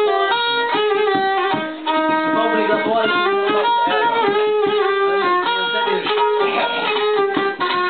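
A violin held upright on the knee, bowed in a melody of quickly changing notes, together with a plucked string instrument.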